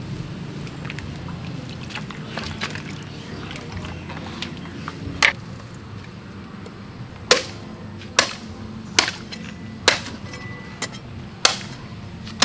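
Goat meat and bone being chopped with a heavy blade on a block. A single sharp chop comes about halfway through, then a steady run of chops about once a second to the end.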